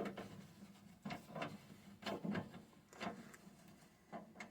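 A few faint, brief knocks and scrapes of handling, about a second apart, over a quiet background.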